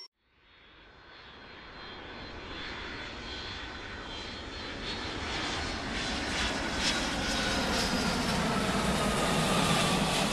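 Airplane engines running, fading in from silence and growing steadily louder, with a faint whine that slowly falls in pitch.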